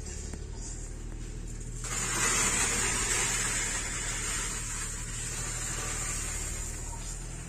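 LuAZ-969's air-cooled V4 engine idling steadily. About two seconds in, a loud rushing hiss comes in and stays over the idle.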